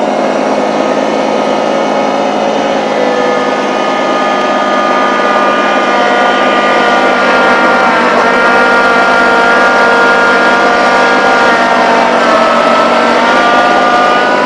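Small tractor's engine running hard under load while pushing with the front bucket, its pitch dipping briefly about halfway through and sagging again then picking back up near the end.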